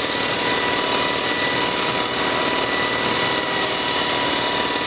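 WerkMaster Scarab handheld concrete grinder running at an even level, its 50-grit hybrid diamond tooling grinding a concrete floor, with a steady motor whine over a dense grinding hiss.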